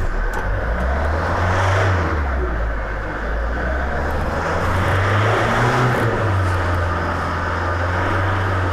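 Kia Carnival's 2.9-litre J3 four-cylinder common-rail diesel running just after start, revved and held at about 2,500–3,000 rpm, with a brief dip about three seconds in. The freshly rebuilt number-one fuel injector is knocking, clearly heard at these revs.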